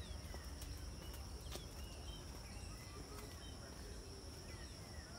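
Faint garden ambience: short, scattered bird chirps over a steady, high, thin insect drone, with a low rumble underneath.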